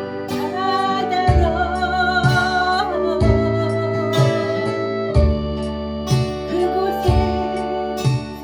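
A woman singing a slow ballad over acoustic guitar, with a soft low beat about once a second.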